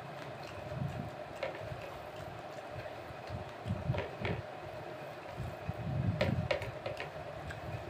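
Fingers mixing and gathering rice and chicken curry on a ceramic plate, with scattered light clicks and soft low thuds, over a steady background hum.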